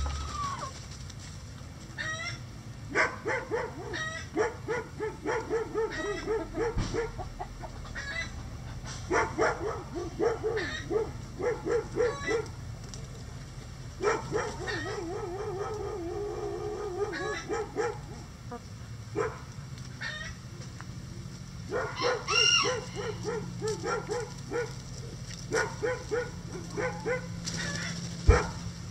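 Chickens clucking in bouts of short, rapid clucks, several a second, with a louder, higher squawk about two-thirds of the way through.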